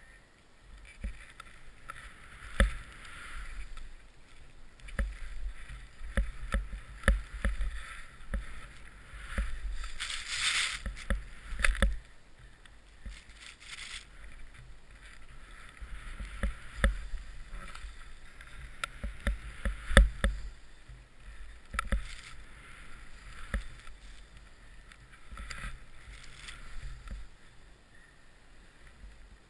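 Riding fast through deep powder snow: uneven swells of hissing snow spray as the rider turns, over steady wind rumble and frequent knocks on the mounted camera's microphone. The loudest spray swell comes about ten seconds in.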